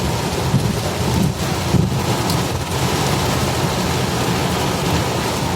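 Heavy rain pouring down on a moving vehicle, a steady dense hiss over a continuous low rumble.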